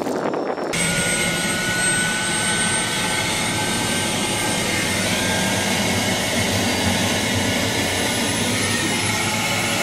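Turbine helicopter running steadily: a dense, even rush of engine and rotor noise with a faint high whine, cutting in abruptly about a second in.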